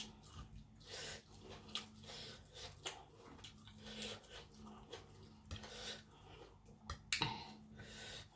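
Close-miked eating sounds: chewing and mouth noises with short breaths, and a louder sharp breath about seven seconds in, over a faint steady hum.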